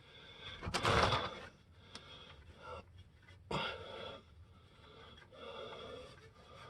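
A man breathing out heavily three times, the first breath the loudest, with a faint click just before it.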